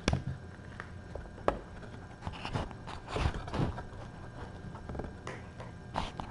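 A cat bumping and brushing against a knocked-over camera right at its microphone: scattered knocks and rustling scrapes, with a sharp knock at the start and another about a second and a half in.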